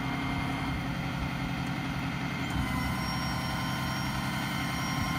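Cummins diesel engine of a Ram 5500 running at a steady raised idle to drive the hydraulics, while the IMT crane's hydraulic boom lowers. A thin, high steady whine joins about two and a half seconds in.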